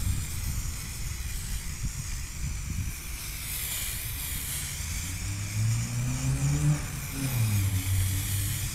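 Aerosol spray-paint can hissing as red paint is sprayed onto a PC case panel. From about halfway through, a passing motor vehicle's engine is also heard, its pitch rising and then falling.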